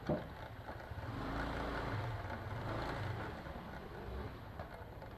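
Motor scooter engine running at low speed, a low steady hum with road and wind noise, and a sharp knock just after the start.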